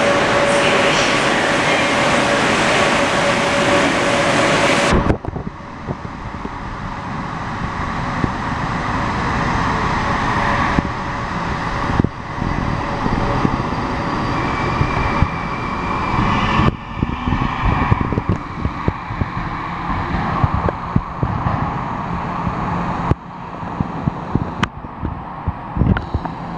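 Moskva-2020 metro train pulling out of the platform: its running noise builds steadily as it gathers speed, with a brief electric motor whine. The first five seconds hold a louder, steady noise with a held tone that cuts off suddenly.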